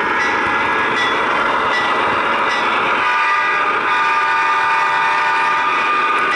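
Onboard sound of HO scale Broadway Limited Imports GE AC6000CW model locomotives: the recorded sixteen-cylinder turbo-diesel sound and horn, played through the models' small Paragon 2 speakers. A steady chord of tones runs through the whole stretch.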